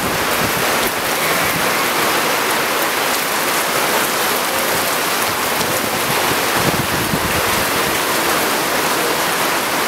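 Heavy rain pouring down, a steady hiss of water falling on pavement and awnings.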